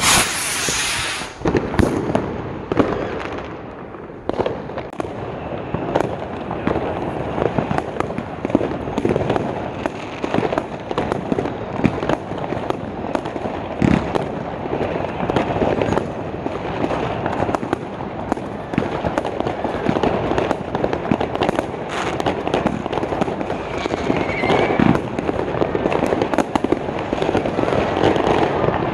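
New Year's Eve fireworks: a continuous barrage of many firecrackers and rockets going off at once, dense overlapping bangs and crackling with no let-up.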